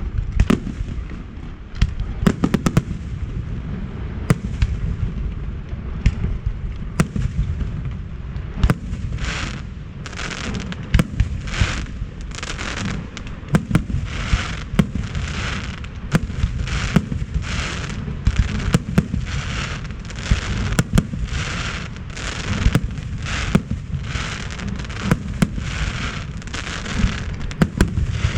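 Fireworks display in full flow: a dense barrage of aerial shells booming and cracking. From about nine seconds in, hissing bursts repeat roughly every two-thirds of a second over the booms.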